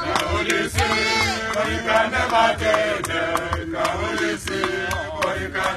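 A group of voices chanting a song without words over a steady drum beat of about two beats a second, with hand claps.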